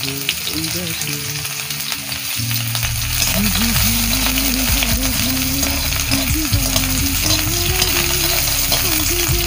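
Chopped onions sizzling as they fry in hot oil in an aluminium karahi, with a metal spatula stirring and scraping against the pan.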